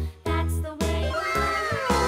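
Children's background music: a bouncy tune with a steady bass beat, and sliding, falling notes from about halfway through.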